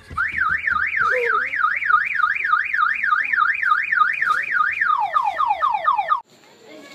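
Car alarm sounding: a fast rising-and-falling warble, about five sweeps a second, that switches about five seconds in to a run of quick falling chirps and then cuts off suddenly.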